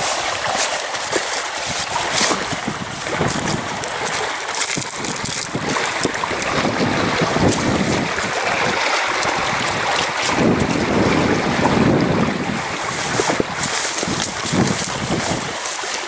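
Wind buffeting the microphone in gusts, over river water lapping and splashing against the rocks of the bank.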